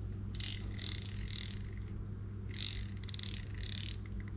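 Shimano Sedona 2500 spinning reel's stock drag clicker, its spool pulled round by hand against the drag. It gives two runs of fast, faint clicking, each about a second and a half long. The stock clicker is soft, called 'slow', and is the one about to be swapped for a louder, ringing one.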